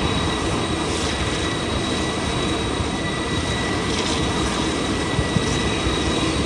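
Airbus A330-300 airliner's GE CF6-80E1 turbofan engines running steadily: a constant roar with a steady high whine.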